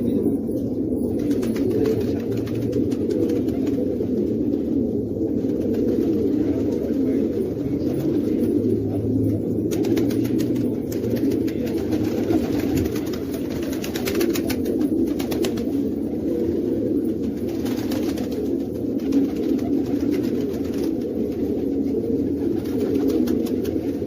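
Domestic pigeons cooing steadily, low coos overlapping one another without a break.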